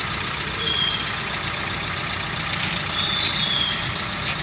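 Maruti Ertiga engine idling while the brake is applied, with two short high-pitched squeaks from the rear drum brake, about half a second in and about three seconds in. The noise is traced to a stretched auto-adjuster spring that no longer locks the adjuster strut.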